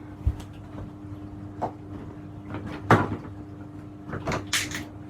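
Handling noises: a few scattered clicks and knocks, the loudest about three seconds in and a quick cluster of clicks near the end, over a steady low hum.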